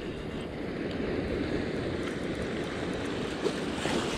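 Steady rushing of river water, with a couple of faint ticks near the end.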